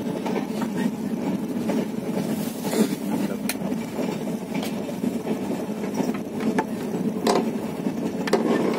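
Passenger train running at speed, heard from inside the coach: a steady rumble of wheels on the rails, with a few sharp clacks now and then.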